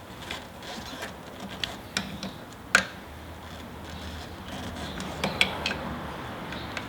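Sparse light metallic clicks and clinks of hand tools working a tight strut-top fastener, with one sharper knock just under three seconds in.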